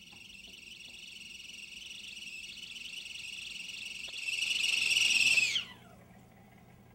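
Stovetop kettle whistling: a steady high whistle that grows louder as the water boils, then drops in pitch and dies away about five and a half seconds in.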